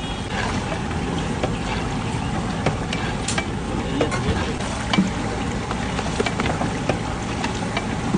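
A large aluminium pot of pav bhaji gravy boiling hard over a gas burner, a steady rumbling bubbling noise. A long metal ladle stirring it gives short knocks against the pot now and then.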